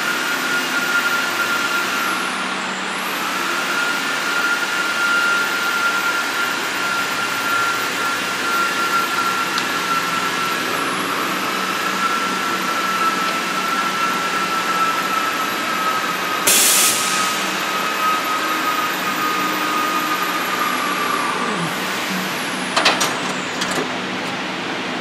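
A 1325 wood CNC router running: a steady whine over a hiss from its spindle, with a very high tone that dips briefly a few times and a lower whining tone that stops near the end. A short burst of hiss comes about two-thirds through, and a few sharp clicks near the end.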